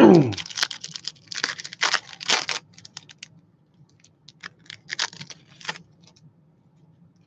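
Baseball trading cards and their pack wrappers being handled: clusters of short, crisp rustles and scrapes for the first three seconds or so, a second cluster around five seconds in, then quiet.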